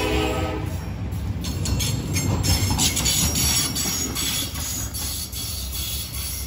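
A railway relief train with a crane car rolls past close by. The air horn's chord dies away in the first second, then the low rumble of the cars continues, with a run of wheels clacking over rail joints in the middle.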